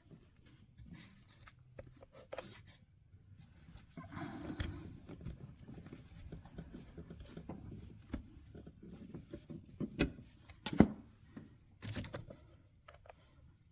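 Needle nose pliers working a spring hose clamp on a rubber heater hose: scattered small metal clicks and scrapes, the sharpest click about eleven seconds in.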